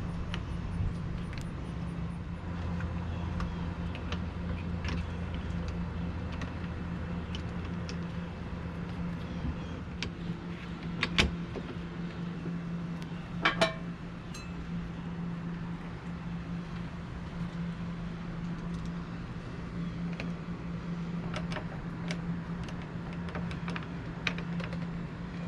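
Small metal parts of a keyless RV door lock clicking and clinking as the lock is reassembled by hand, with two sharper clicks a couple of seconds apart about halfway through, over a steady low hum.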